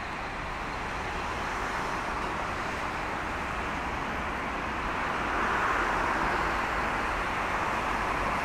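Steady city traffic noise, an even wash of road sound that swells slightly about five seconds in.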